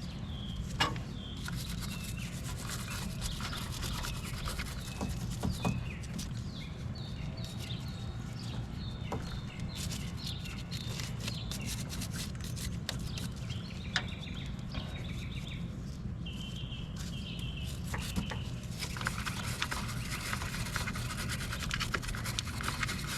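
A brush scrubbing corrosion and baking-soda paste off a car battery terminal, with scattered clicks, the scratchy rubbing strongest near the end. Birds chirp in the background.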